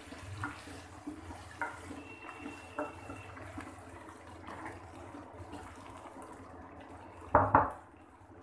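Onions and potatoes frying in oil in a cooking pot: a steady sizzling hiss with light clinks about once a second, and two loud knocks about seven seconds in.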